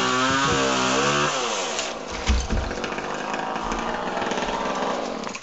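Chainsaw running at full throttle, then its pitch falls about a second in as it is let back to idle, with a heavy low thump a moment later; it then idles steadily.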